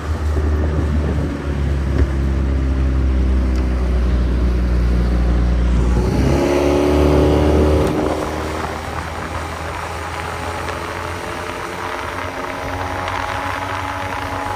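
Small Mercury outboard motor driving a mini boat, running with a low steady drone at first; about six seconds in it revs up sharply and then holds at a higher pitch under way. The rush of spray and wake off the hull is heard underneath.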